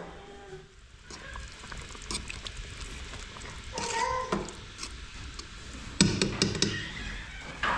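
A metal fork stirring meat stew in a large pot, scraping and clinking against the pot, with a cluster of sharp knocks about six seconds in. A short high-pitched cry comes a few seconds in.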